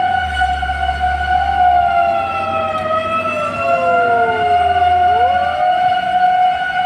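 Fire engine sirens sounding together: one holds a steady high tone, while a second slides slowly down in pitch and sweeps quickly back up about two-thirds of the way in. A low engine rumble runs underneath and fades out near the end.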